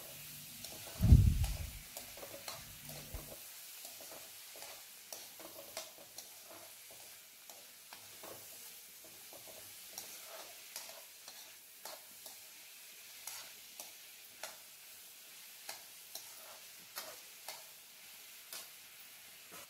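Steel spoon stirring and scraping chopped vegetables frying in oil in a metal kadai, with scattered short taps of the spoon on the pan over a faint steady sizzle. A single loud low thump about a second in.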